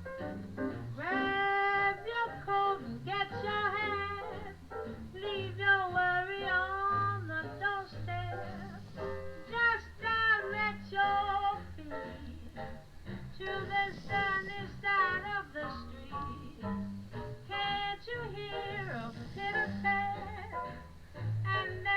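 Jazz music: a sliding, voice-like lead melody over a bass line of short repeated notes.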